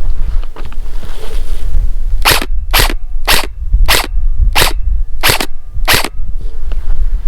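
KWA VM4 Ronin 10-SBR airsoft electric gun firing seven single shots, evenly spaced a little over half a second apart, starting about two seconds in. Wind rumbles on the microphone throughout.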